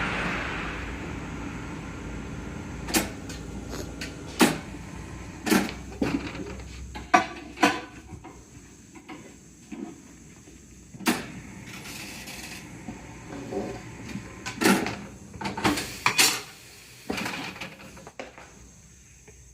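Tyre-changing work on a low-profile 225/35 R20 tyre and wheel: a rushing hiss fades out in the first second. Then comes a string of about a dozen sharp metal clanks and knocks at irregular intervals, some ringing briefly.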